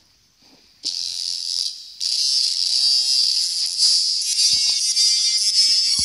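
Electronic music from a drum-pad app playing through a touchscreen device's small speaker. After a near-silent first second, a bright, high buzzing synth layer starts suddenly and keeps going, with a few faint low thumps.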